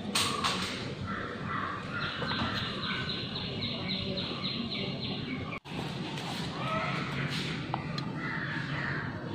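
Birds calling in the background, including a rapid repeated call at about four a second, over a low steady hum. The sound drops out abruptly for an instant a little past halfway.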